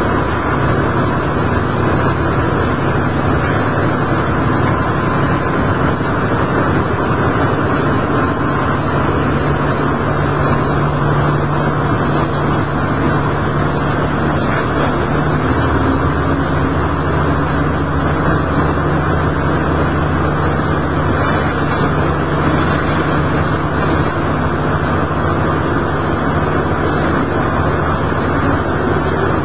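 Diesel railcar running along the line, heard from inside the cab: a steady engine drone over wheel and rail noise. The engine note changes about halfway through.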